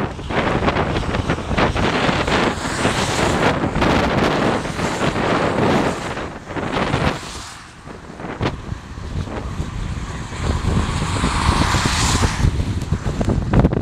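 Strong wind buffeting the microphone with a heavy rumble, and the noise of vehicles passing close by: one about halfway through and another swelling to a peak near the end.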